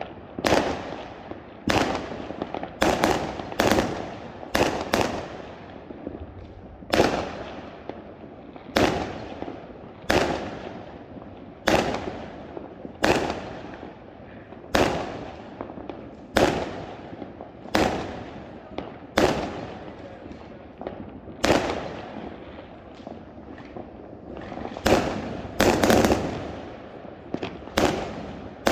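Homemade fireworks going off one after another, a sharp bang about every second, each trailing away quickly over a steady background crackle and rumble.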